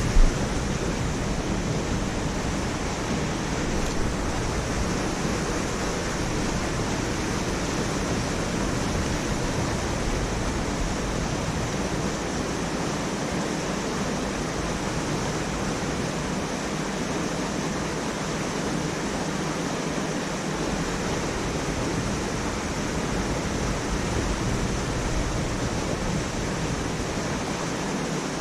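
Steady rushing noise, with one short sharp knock just at the start and a fainter one about four seconds in.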